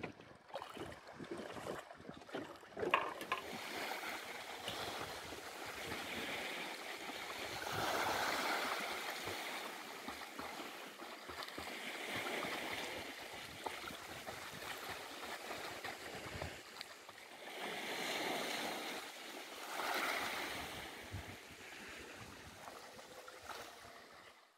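Sea surf washing in and out, a rushing noise that swells and ebbs every few seconds, fading out at the end.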